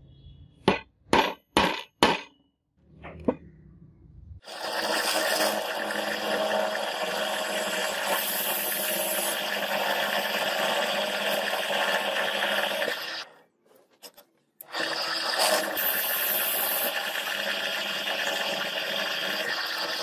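A centre punch struck four times into a steel block, sharp metallic knocks, then a drill press boring into the steel clamped in a vise: a steady grinding noise for about nine seconds that stops briefly and then resumes.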